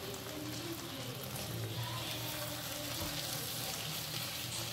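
Chopped pork sisig with onion and chili sizzling steadily in a nonstick frying pan while a spatula stirs it.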